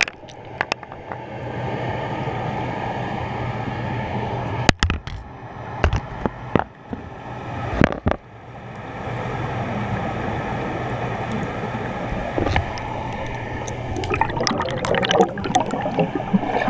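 Swimming-pool water heard underwater through a GoPro in its waterproof housing: a steady muffled rush with a low hum, broken by a few sharp knocks, and bubbling over the last few seconds.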